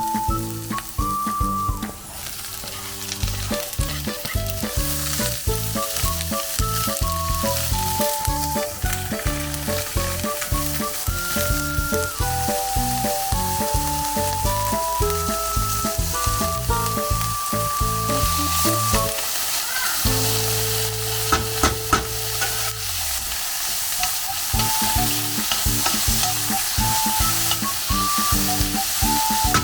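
Food sizzling in a hot frying pan while being stirred, with scraping and clicks from the stirring, over background music with a simple melody.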